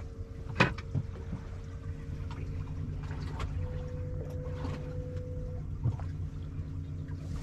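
Boat engine idling with a steady low hum and a faint steady whine above it, with a few sharp clicks.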